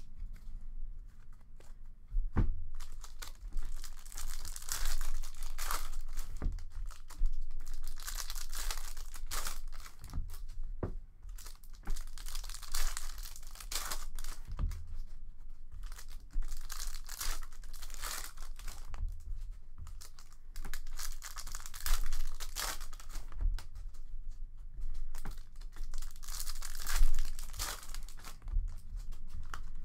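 Hockey trading card pack wrappers being torn open and crinkled by hand, one pack after another, in repeated bursts of tearing and rustling, with a few short soft knocks.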